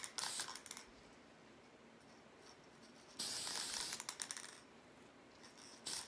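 Aerosol can of clear acrylic sealer spraying in two hisses: a short one at the start and a longer one of about a second and a half past the middle.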